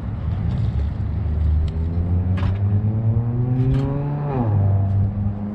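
A vehicle engine accelerating, its pitch climbing steadily for about four seconds, then dropping sharply and holding steady at a lower pitch, with low wind rumble on the microphone.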